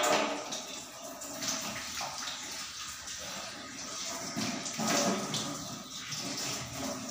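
Water running from a kitchen tap and splashing in the sink as someone washes under it, rising and falling unevenly.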